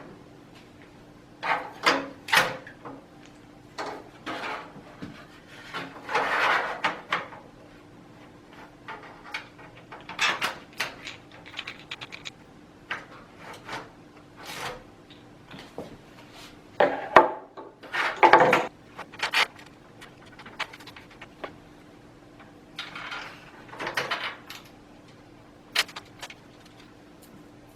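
Screws and a screwdriver being worked into the liquid-cooler radiator and fan mounts of a metal PC case: irregular clicks, scrapes and rattles with short gaps between them, the loudest cluster a little past the middle, over a faint steady hum.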